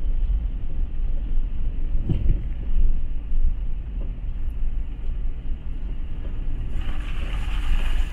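Vehicle on the move, most likely a car: a steady low rumble of engine and road noise. Near the end a rushing hiss swells for about a second and a half.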